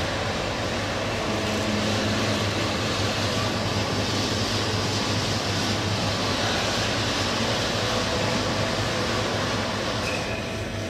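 Steady running noise of a PU/PIR sandwich panel production line: an even mechanical whir over a constant low hum, with a few faint steady tones.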